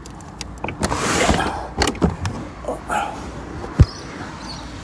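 Handling noise beside a wheeled suitcase inside a car: scattered clicks and knocks with a brief rustle about a second in, and one sharp thump a little before the end as the camera is picked up.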